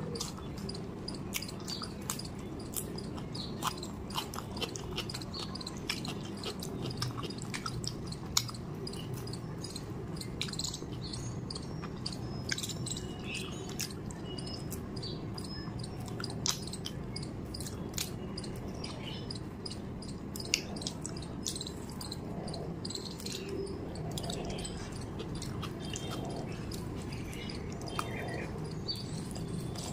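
Close-miked eating of rice and chicken curry by hand: chewing and wet lip-smacking, with many small sharp mouth clicks, over a steady low hum.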